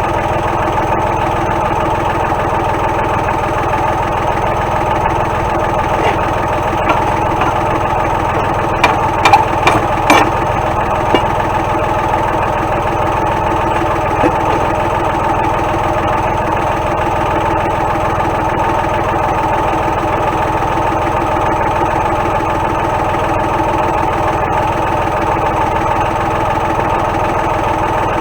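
Tractor engine idling steadily. About nine to ten seconds in there is a quick run of sharp knocks.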